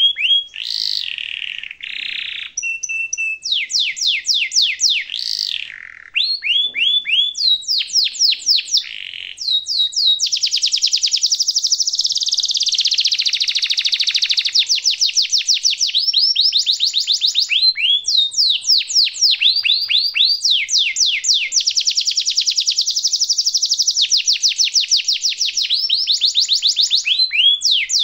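Domestic canary singing: a long song of fast chirps and rolling trills, with long unbroken rolls of rapid repeated notes about ten seconds in and again past twenty seconds.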